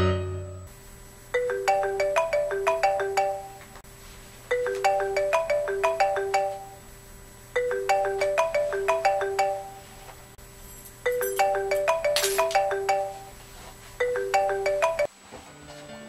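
Mobile phone ringing: a short ringtone tune of quick notes repeating about every three seconds, five times, then cutting off suddenly near the end.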